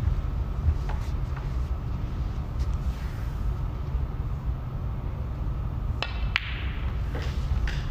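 Sharp clicks of a snooker shot, the cue tip striking the cue ball and balls knocking together, a pair of them near the end, over a steady low rumble of venue room noise.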